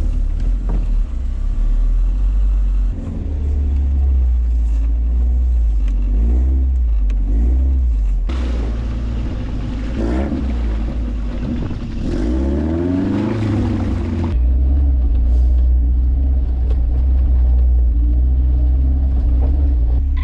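Off-road vehicle engine revving on a snowy trail, its pitch rising and falling several times, loudest in the middle, over a steady low rumble.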